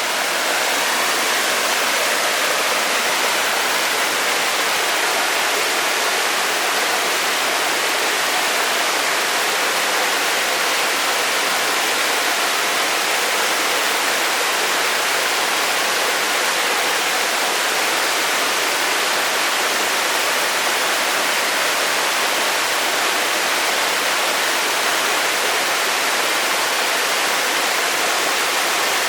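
Waterfall rushing: a steady, unbroken roar of falling water, with no change in level.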